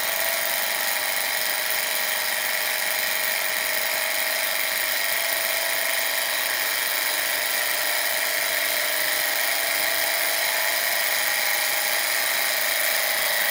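A small engine or motor running with a steady, high-pitched whir.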